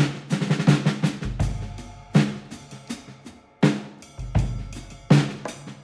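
Music with a heavy drum beat, a sharp hit about every second and a half, and deep bass notes swelling in between.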